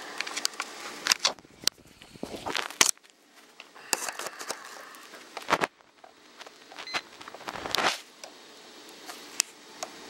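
Handling noise: irregular clicks, knocks and scraping as a camera and a handheld voltage tester are fumbled in one hand, with several sharper knocks spread through.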